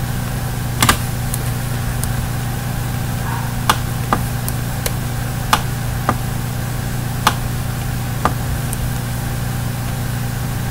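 Steady low electrical hum from the recording setup, with about eight short, sharp mouse clicks scattered through it.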